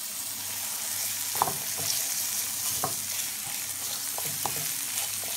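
Diced peppers and spring onions sizzling steadily in oil in a frying pan as they are sweated, with a spatula scraping and tapping against the pan about seven times as they are stirred.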